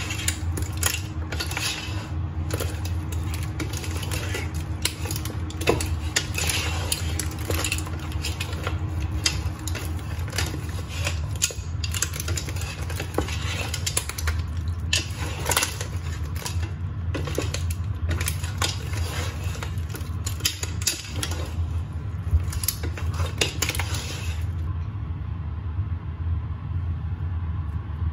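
A spoon knocking and scraping against a cooking pot as a seafood boil of crab, shrimp, corn and sausage is stirred and tossed, in irregular clinks over a steady low hum. The clatter stops about three-quarters of the way through, leaving the hum.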